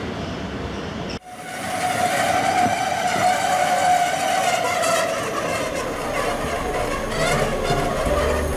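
Bernese Oberland Railway electric train standing at the platform, its electrical equipment giving a steady whine. About a second in, rail running noise cuts off abruptly and the whine begins.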